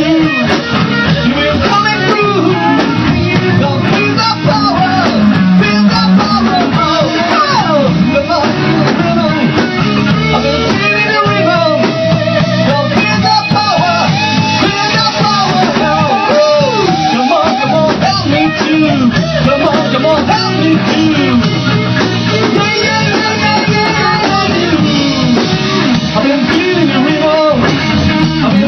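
Rock band playing a song: guitar and drum kit with a voice singing, loud and continuous.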